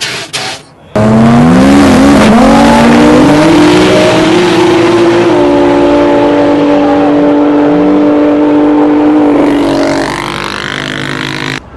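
Drag car engine at full throttle, starting suddenly about a second in. Its pitch climbs and steps with gear changes over the next few seconds, then holds steady at high revs, and drops and gets quieter near the end before cutting off abruptly.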